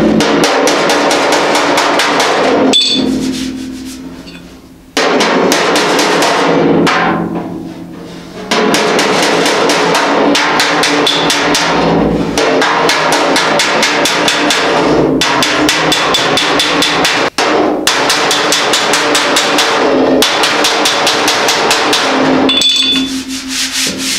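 Hammer and dolly on the steel side panel of a Model A pickup bed: rapid, steady taps, several a second, knocking down dents and high spots. The taps come in runs with two short pauses near the start, where the ring of the metal dies away.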